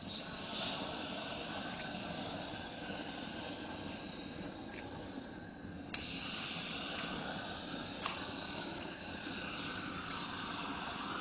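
Propane roofing torch burning with a steady hiss as it heats the glued-down vinyl, with a few sharp clicks midway and near the end.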